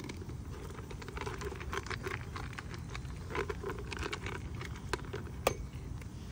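Deer buck feeding with its muzzle in a plastic bucket: a run of crisp crunching and clicking as it chews and noses through the food, with one sharper click near the end.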